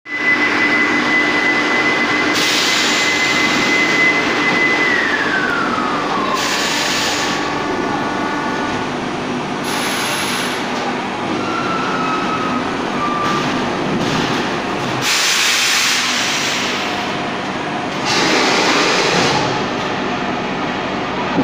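Thermoforming machine running through its cycle: a steady machine noise with repeated hissing bursts of air, each lasting about a second. A high whine holds steady, then drops in pitch about five seconds in.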